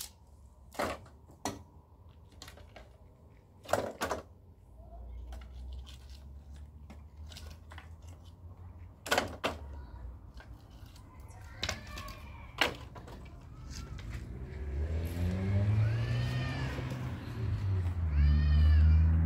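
A few sharp knocks and clatters, then a cat meowing repeatedly in the second half, each call rising and falling in pitch.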